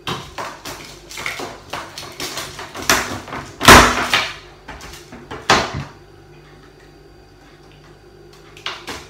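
Cooked lobster claw shell being cracked and pulled apart: a quick run of crunching snaps, clicks and knocks for about six seconds, the loudest crack about four seconds in, then one more knock near the end.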